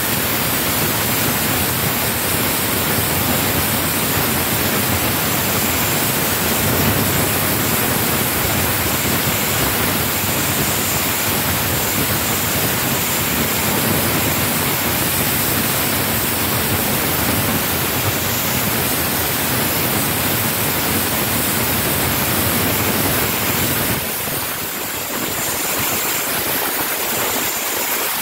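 Handheld gas blowtorch burning with a steady rushing hiss, its flame heating a rust-seized brake caliper bolt to free it. The noise dips briefly near the end.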